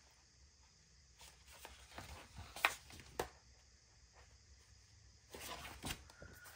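Faint rustling with a few soft taps and clicks from paper stickers and a sticker book being handled, in two short clusters.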